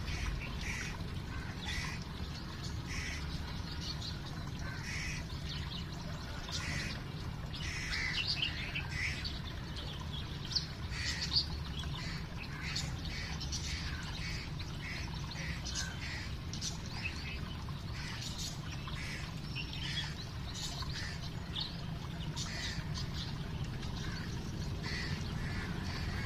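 A flock of waterfowl calling, with many short, high squawks and chirps overlapping throughout, busiest a third of the way in, over a steady low rumble.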